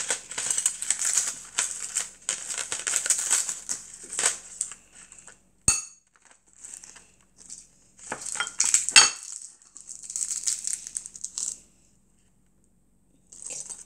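Metal spoon and chopsticks clinking and scraping against ceramic bowls of rice and tuna, a rapid run of small clicks and scrapes with one sharp clink about six seconds in and another cluster of clinks around nine seconds.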